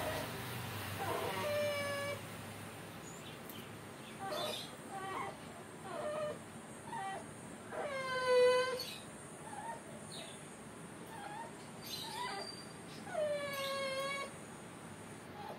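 A puppy whining and crying in a series of drawn-out cries that fall in pitch, with shorter whimpers between them; the loudest comes about eight seconds in. It cries as its freshly cropped ear is being stitched.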